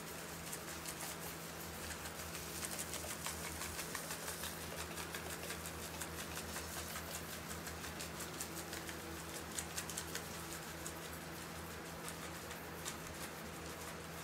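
Table salt sprinkled from a shaker onto vinegar-wet steel sunflower sculptures, the grains pattering as light, irregular ticks; this is the salt stage of a vinegar, salt and hydrogen peroxide rusting treatment.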